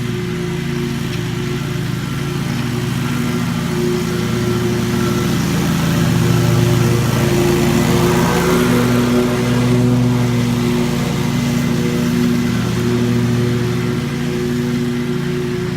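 Lawn mower engine running steadily under load while cutting grass.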